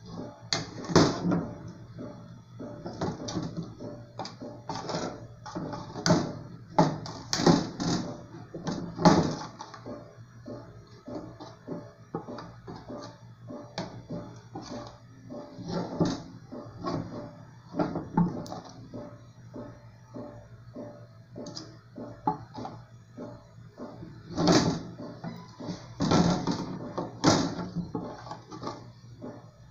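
Metal spoon scraping and clinking against an aluminium pudding mould, with irregular knocks as the mould is tilted and turned to coat its sides with hot caramel.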